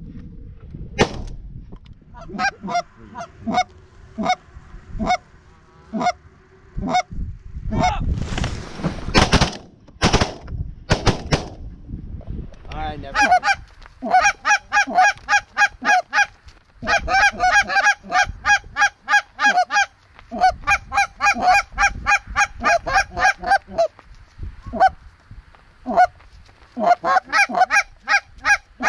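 A flock of Canada geese honking, dense runs of rapid repeated honks through the second half. In the first half, a few loud sharp bangs and knocks, the loudest about nine seconds in.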